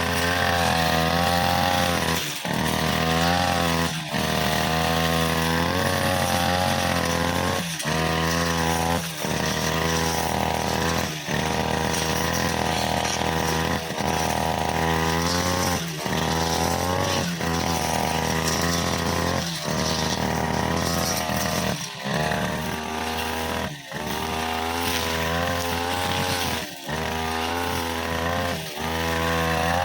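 OGAWA brushcutter engine running at high speed with a blade cutting through long grass, its pitch wavering and sagging as the blade takes load, with brief dips every second or two.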